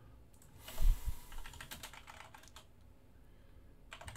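Typing on a computer keyboard: a low thump about a second in, then a run of key clicks, a short pause, and more typing near the end.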